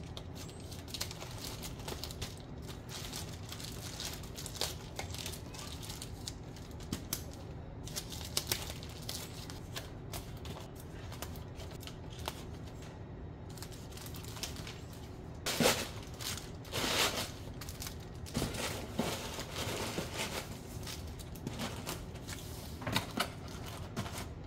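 Bubble wrap crinkling and rustling as bubble-wrapped packages are handled and packed into a cardboard box: light scattered crackles at first, then several louder crinkling bursts past the middle.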